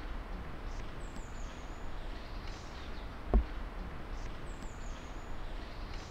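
Outdoor ambience by a lake: a steady rustling hiss with faint high falling bird chirps, and a dull low thump about every three and a half seconds, loudest about three seconds in.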